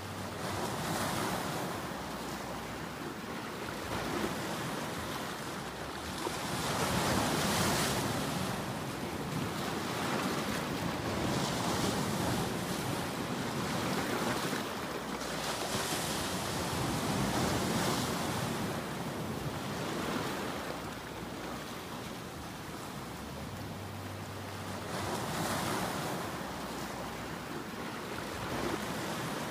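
Ocean surf: waves breaking and washing in, the rush swelling and fading every few seconds, loudest about seven seconds in.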